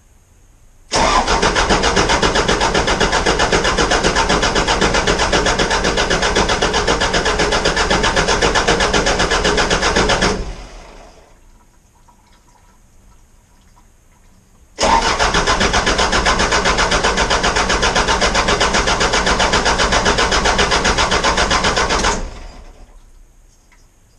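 Isuzu turbodiesel engine cranked on its starter in two long bursts, about nine and seven seconds, with a rapid even chugging, each ending as the engine spins down. It does not catch: with the fuel tank disconnected, it is being cranked to prime the pump of a freshly rebuilt JATCO JR403E automatic transmission.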